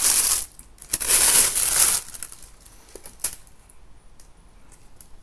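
Tissue paper rustling and crinkling as it is handled in a cardboard shoebox: two loud spells in the first two seconds, then only a few faint clicks and light handling noises.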